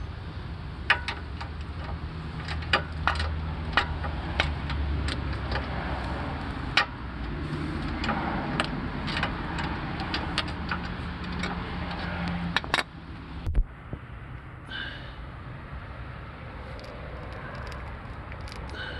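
A 2006–2011 Honda Civic running, with a string of sharp metallic clicks about two to three a second over its steady hum, the clicks and hum stopping about 13 seconds in. The clicking is the kind given by a worn outer CV joint on the drive axle as the car turns.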